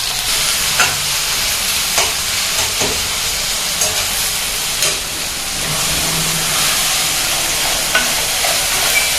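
Vegetables frying in oil in a kadai, a steady sizzle, with a spatula scraping and tapping against the pan now and then as they are stirred.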